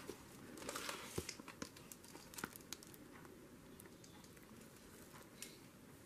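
Faint rustling and a few light clicks of paper journal pages being handled, mostly in the first half, then near quiet.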